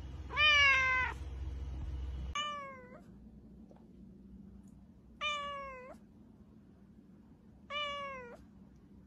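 Domestic cat meowing: four short meows a couple of seconds apart, the first the loudest. A low hum sounds under the first two seconds and stops suddenly.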